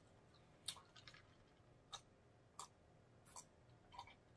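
Near silence broken by faint, wet mouth clicks and swallows, roughly one a second, as a drink is gulped from a plastic tumbler.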